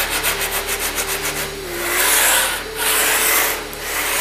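Sandpaper rubbed back and forth along the edge of a thin laminate (sunmica) sheet glued to plywood, smoothing the freshly trimmed edge flush. Quick short strokes at first, then slower, longer strokes about one a second.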